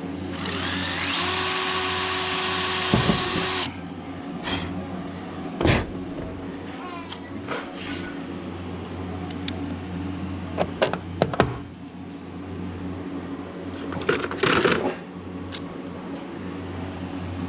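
Power drill running for about three seconds, its whine rising as it spins up and then holding steady before cutting off. Scattered knocks and clicks follow, over a steady low hum.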